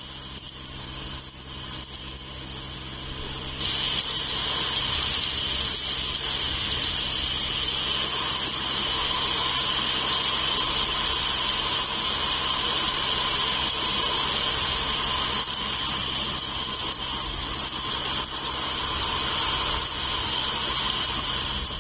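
Insects chirring steadily in a continuous high-pitched drone, growing louder about four seconds in, with a lower steady hum joining partway through.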